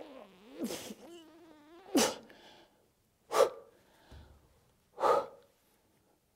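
A puppeteer voicing a pig hand puppet: a drawn-out wavering vocal sound, then three short, sharp sneeze-like bursts about one and a half seconds apart.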